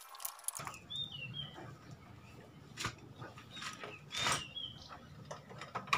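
A few light metal clicks and knocks as a clutch pressure plate is handled and set onto a motorcycle's clutch basket, with two pairs of short, high, quickly falling chirps from an animal, about a second in and again about four seconds in.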